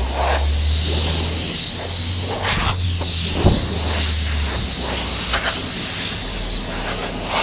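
Compressed-air blow gun hissing steadily as it blows loose sand out of the sprue and feeder of a greensand mould, with a low hum under the hiss for the first four seconds or so.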